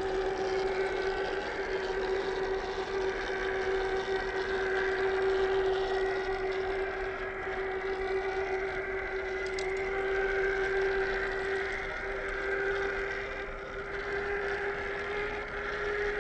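Electric drive motor and gearbox of a 1/10-scale RC crawler whining steadily, its pitch creeping up slightly near the end.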